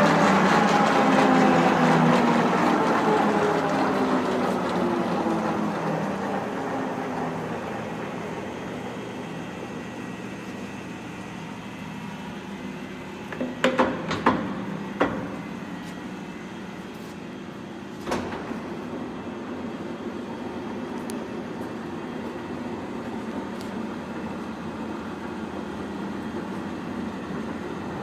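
Large Binns & Berry TB engine lathe's spindle and headstock gearing running down after being switched off: a whine of several tones falls in pitch and fades over the first several seconds, leaving a steady low hum. A few sharp metallic clanks come about halfway through.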